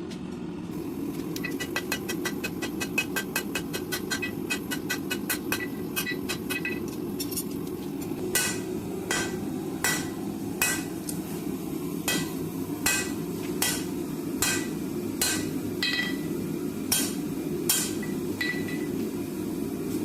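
Hammer blows on hot steel on an anvil, forge-welding a canister of steel wool and powdered steel into a billet. The blows come quickly, about four a second, for the first few seconds, then slow to single blows under a second apart, many with a short metallic ring, over a steady low rush of background noise.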